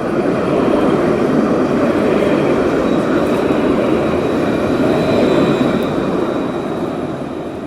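Cable car rolling past on its rails: a steady rumble that is loudest about five seconds in, then fades away near the end, with a faint high whine in the middle.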